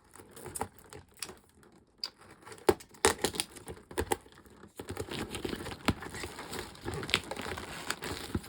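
A knife picking and scraping at hard plastic wrapping, with the plastic crinkling. There are irregular sharp clicks, and the crackling grows denser and steadier about five seconds in.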